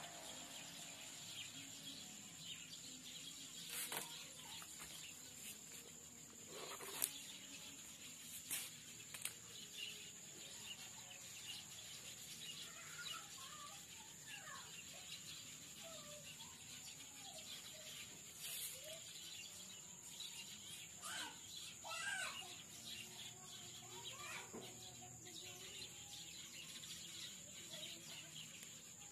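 Faint background ambience: a steady high-pitched whine, a few soft clicks, and scattered short bird-like chirps.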